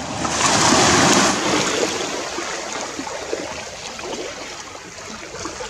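Shallow seawater splashing and sloshing as a piece of filleted mackerel is rinsed by hand, with small waves lapping. It is louder for about a second near the start.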